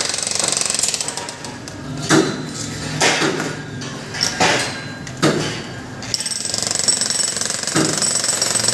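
A jackhammer rattling in rapid strokes. It stops about a second in, a few separate heavy knocks follow, and it starts rattling again about six seconds in.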